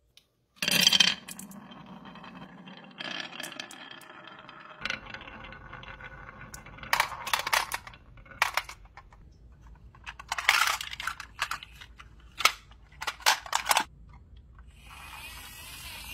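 Marbles poured onto a wavy wooden marble-run slope, clattering at the start and then rolling down the carved wooden track with a steady rumble. Sharp clicks and clacks follow as they knock through the curves and drop off the end into a plastic toy truck, and near the end a steadier rolling noise sets in.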